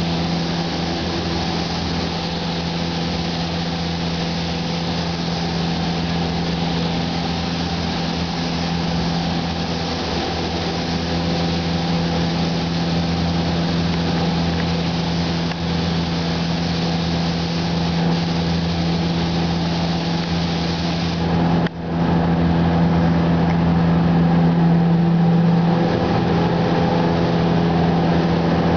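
Steady hiss of a compressed-air paint spray gun laying down clear coat, over a steady machine hum, with one brief break about three-quarters of the way through.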